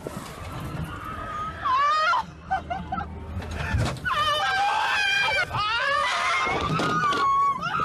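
Young women screaming on a fairground thrill ride: several high-pitched screams, coming thick from about halfway and ending in one long held scream, with wind rushing over the microphone.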